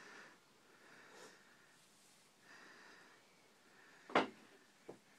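Faint breathing and soft handling of nylon rope as a square knot is tied, with one sharp short sound about four seconds in and a smaller one just before the end.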